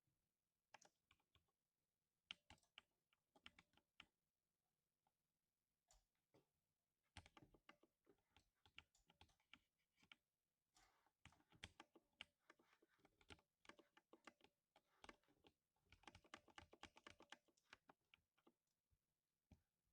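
Typing on a 60% mechanical keyboard with lubed silver linear switches: soft, quiet keystroke clacks in uneven runs with short pauses, the busiest stretch in the second half.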